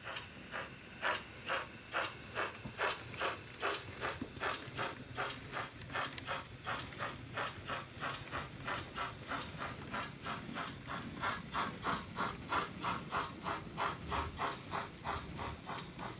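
DCC sound decoder of a Bachmann OO gauge GWR 'Dukedog' 4-4-0 model steam locomotive giving steady exhaust chuffs, about three to four a second, as it runs with its coaches, over a low rumble of the model's wheels on the track.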